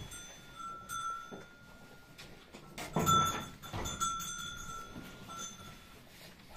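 A calf drinking water from a plastic bucket, slurping and sucking at the surface, with a louder noisy sound about three seconds in.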